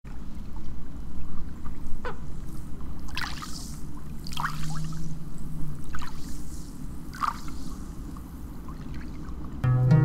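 Water lapping and trickling, with about five soft splashes over a steady low rumble. Plucked-string music begins just before the end.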